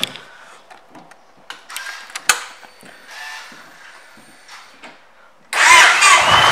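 A few light clicks and handling noises, then about five and a half seconds in the 2006 Yamaha Stratoliner's 1,854 cc V-twin starts with a sudden loud burst and keeps running.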